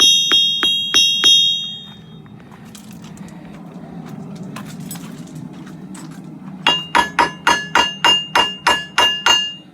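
Hammer strikes ringing on anvils: first a few blows with a high, bright ring, then after a pause a quicker run of about ten blows with a lower ring. The two runs sound different, which is typical of comparing one anvil's ring against another's; the new anvil sounds weird and not like pounding steel.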